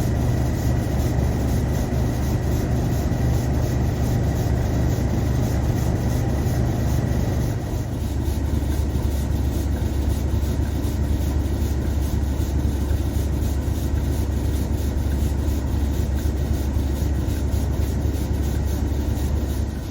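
Heavy diesel locomotives running, a deep steady engine drone with a fast pulsing beat. About eight seconds in the engine note drops lower, and a faint high whine stops.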